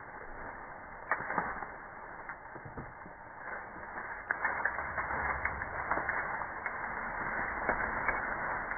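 White-tailed doe, just shot through the lungs with an arrow, thrashing and kicking in dry leaves and brush as she goes down: a continuous crackling rustle with sharp snaps of twigs, busier from about four seconds in.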